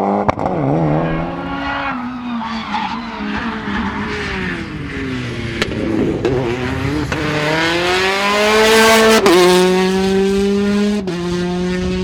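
Rally car engine revving hard as the car slides through a corner with tyre squeal. The revs waver, then climb steadily to a sharp upshift about nine seconds in, followed by another upshift near eleven seconds.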